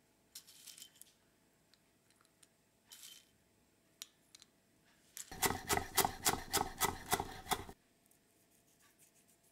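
Soft, brief rustles as pumpkin seeds are sprinkled onto a bowl of soup. Then, about five seconds in, a louder quick run of about a dozen sharp clicks, about five a second, lasting a little over two seconds.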